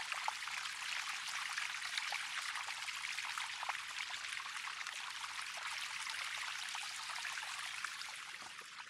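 A thin stream of water spilling down a wet rock face in a small waterfall, a steady splashing trickle that eases slightly near the end.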